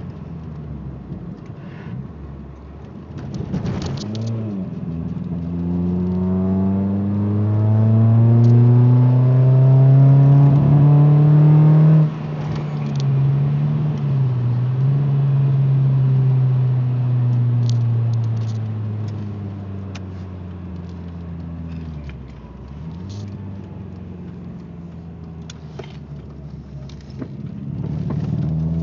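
Ford Escort ZX2's four-cylinder engine pulling the car: it revs up through a gear for several seconds, drops sharply about twelve seconds in at a gear change, slowly falls, then climbs again near the end. The engine is misfiring badly, and the check-engine light is flashing.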